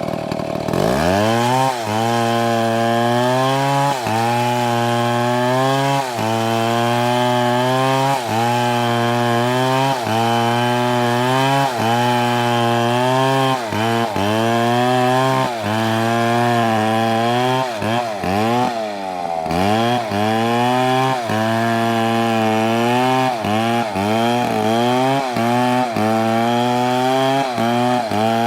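STIHL two-stroke chainsaw revving up to full throttle and cutting into wood. Its pitch sags briefly every second or two as the chain bites under load, then recovers, and it bogs down deeper once partway through.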